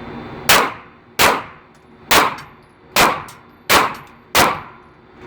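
Six handgun shots in quick, uneven succession, each followed by a short ringing tail, fired on command in a draw-and-fire-two-shots drill.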